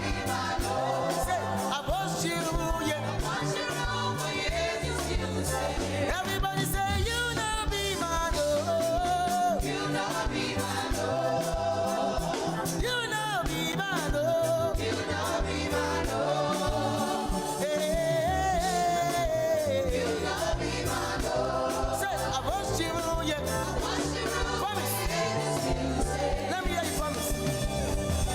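Gospel praise singing over instrumental backing with a steady beat, voices holding and sliding between sustained notes.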